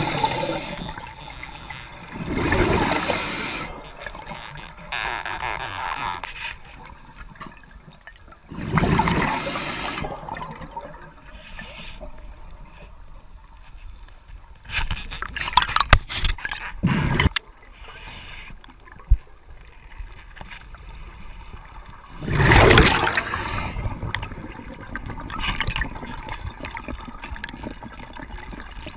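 Underwater water noise: rushing, bubbling bursts every few seconds, the loudest about two and a half, nine and twenty-three seconds in, with a few sharp clicks between them.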